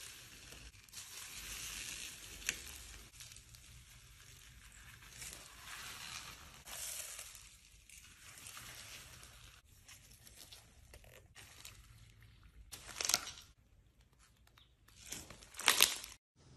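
Clear slime loaded with small white foam beads being pressed, stretched and squeezed by gloved hands. The beads crackle and crunch continuously, with two louder crunches near the end.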